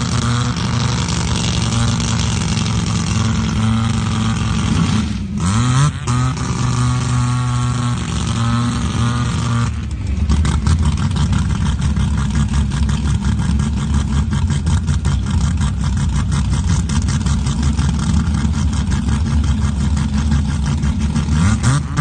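Drag race car engines idling, with the revs dipping and climbing again about five seconds in. From about ten seconds a louder, rougher-running engine idles with a rapid pulsing beat, and revs rise near the end.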